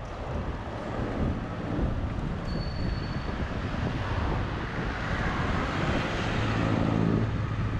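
Road traffic noise along a road, a steady rush of passing vehicles, with a low engine hum growing stronger near the end.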